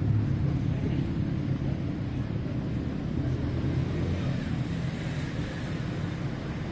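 Street traffic: a motor vehicle's engine running close by, slowly fading as it moves away.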